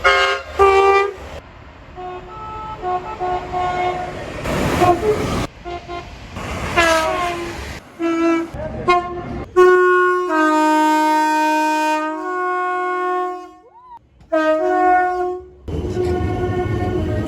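A quick succession of British train horns, many short blasts at different pitches, cut abruptly one after another. In the middle one horn is held for about three seconds, and near the end a train's running rumble comes in under another horn.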